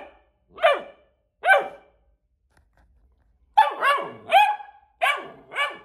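Doberman puppy barking: two high-pitched barks, a pause of about two seconds, then five more in quick succession. The barking is aimed at the camera stand, which the owner says the puppy doesn't like.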